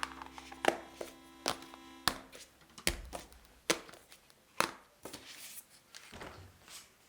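Kitchen work on a counter: a run of sharp knocks, about seven in the first five seconds at uneven spacing, then softer handling noises.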